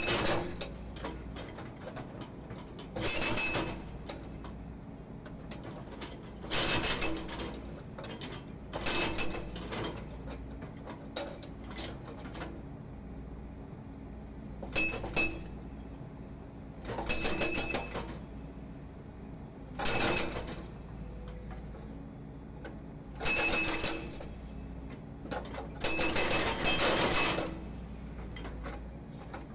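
Hydraulic breaker on a Volvo EC210D excavator hammering broken concrete pile offcuts in about eight separate bursts, each half a second to a second and a half of rapid blows. The excavator's engine runs steadily between the bursts.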